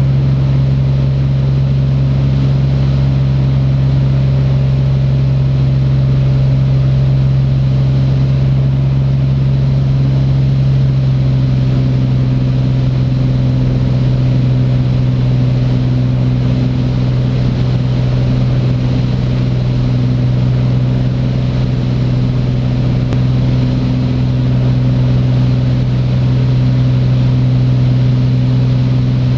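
Beechcraft Bonanza A36's six-cylinder piston engine and propeller droning steadily in the climb after takeoff, one strong low hum with overtones. The tone shifts slightly about a third of the way through.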